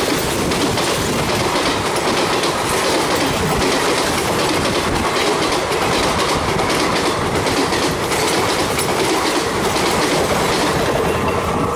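Coaches of an express passenger train rushing past at speed: a loud, continuous rattle of steel wheels clattering over the rail joints, with the rush of air and rolling noise.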